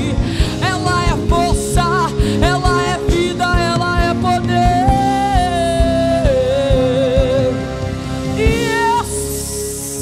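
A woman sings a Christian worship song into a microphone over a live band with a steady drum beat. She holds one long, wavering note through the middle.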